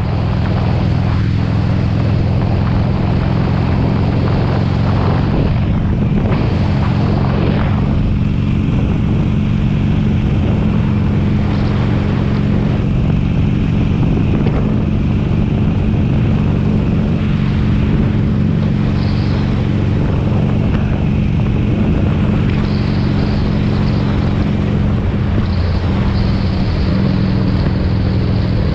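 2007 Harley-Davidson Sportster 883 Custom's air-cooled V-twin engine running steadily while the motorcycle cruises along the road, heard from the rider's helmet.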